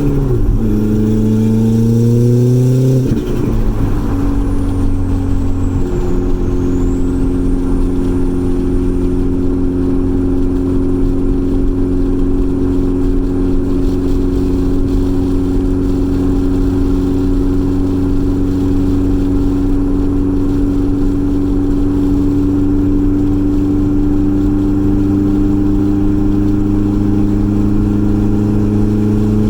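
Turbocharged B5 Audi A4 1.8T four-cylinder engine pulling with rising revs until about three seconds in, when the throttle comes off. It then settles into a steady drone at cruising speed, its pitch creeping slowly upward.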